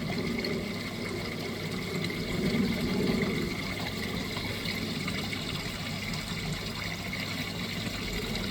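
Garden waterfall running steadily into a pond, with a steady splash and trickle of falling water that swells briefly about three seconds in.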